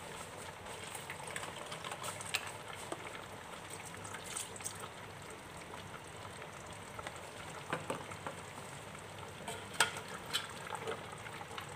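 A steel pot of chicken and potatoes cooking on the stove: a steady soft sizzle with scattered light clicks, while boxed coconut milk is poured in. A few sharper ticks come in the second half.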